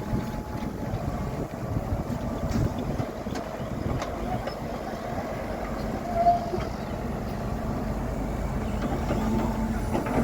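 Excavator's diesel engine running steadily, with a low hum and scattered faint knocks, and one brief higher-pitched note about six seconds in.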